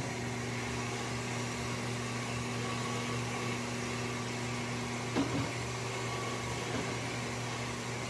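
Steady motor hum of a KitchenAid stand mixer beating egg whites at medium speed, with a microwave oven running. A light knock about five seconds in.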